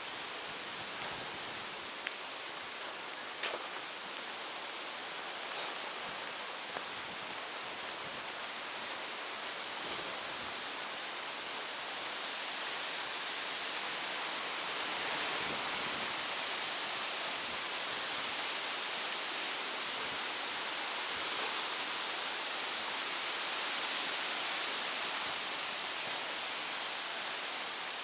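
Steady rushing hiss of stormy weather, wind and rain, growing louder about halfway through. A few faint taps in the first several seconds.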